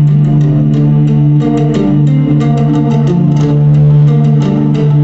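A song with guitar, a strong sustained bass line and a steady beat playing loudly through a pair of JBL A352HI 6.5-inch coaxial car speakers mounted in a box, with the phone and amplifier not yet turned up to full volume.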